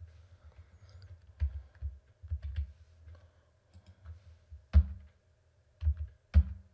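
Computer keyboard keys pressed in scattered clicks while text is being edited, with a few louder key strikes in the second half.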